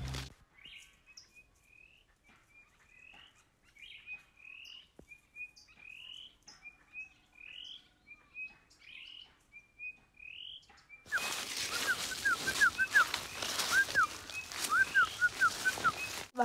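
Wild birds singing: one bird repeats a short rising chirp over and over. About two-thirds of the way through, the sound gets louder, with quick rising and falling whistled notes over a steady hiss.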